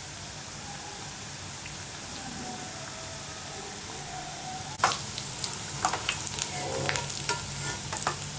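Chickpea-and-cashew pakoda fritters deep-frying in hot oil in a stainless steel pan, a steady sizzle. About five seconds in, a perforated steel skimmer strikes the pan, then clinks and scrapes against it as the golden fritters are stirred and lifted out of the oil.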